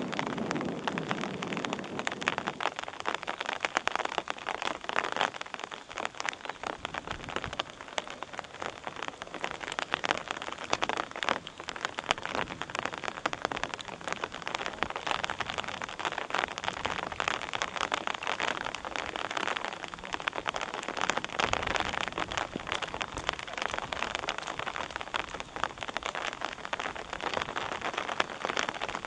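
Rain pattering: a dense, steady crackle of fine drops that never lets up. A duller low rumble sits under it for the first two seconds or so.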